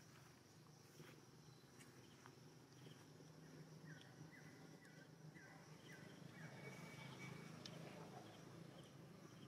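Near silence: faint outdoor ambience with a steady low hum, and a short run of about five faint chirps, roughly two a second, in the middle.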